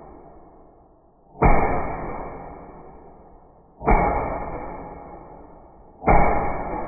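Three loud airsoft gun shots, a little over two seconds apart, each with a long fading ring. The last comes as a BB tears a chunk out of an apple.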